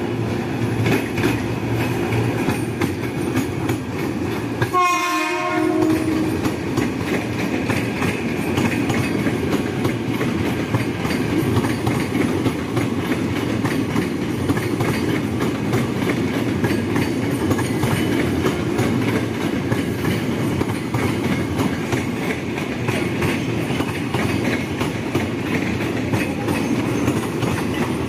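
KRL Commuter Line electric multiple unit rolling past at close range, a steady rumble of wheels and running gear with some rail clatter. A short horn blast sounds about five seconds in.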